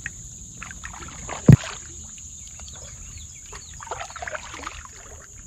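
Kayak paddle strokes, the blade dipping and dripping water, with one sharp knock about a second and a half in. A steady high-pitched insect drone runs underneath.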